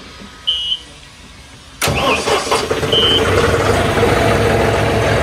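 John Deere diesel tractor engine starting: after a short electronic beep, the engine catches suddenly about two seconds in and settles into a steady idle, with a second short beep a second later.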